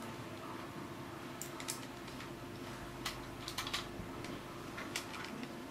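Scattered light plastic clicks and taps from an M57C camera quadcopter's body and camera being handled, a cluster of them about halfway through, over a low steady hum.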